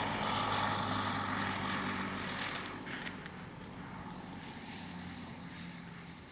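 An engine drone with a steady low hum under a broad hiss, loudest for the first couple of seconds and then slowly fading, as of an engine moving away.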